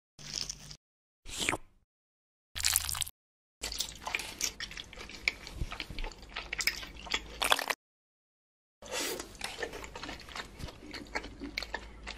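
Dubbed eating sounds: crisp, crackly crunching and chewing of fried noodles. It comes in separate clips with dead silence between them: three short bits, then two longer runs of dense crackling.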